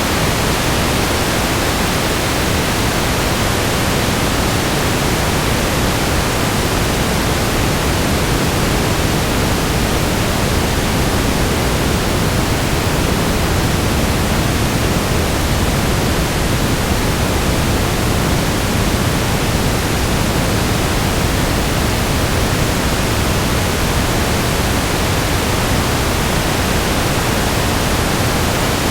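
Steady static noise: a loud, even hiss with no tones or clicks, spread evenly from deep rumble up to high fizz and unchanging throughout.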